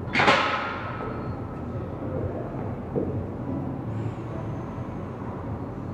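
A loaded barbell clanks against the power rack's metal hooks as it is lifted off, with a short metallic ring that fades within about a second. A softer knock follows about three seconds in, over a steady low background hum.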